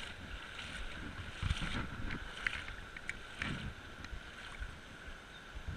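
Creek water sloshing and splashing around legs wading knee-deep, with a few splashy surges about a second and a half in and again past three seconds. Under it runs a steady rush of flowing water.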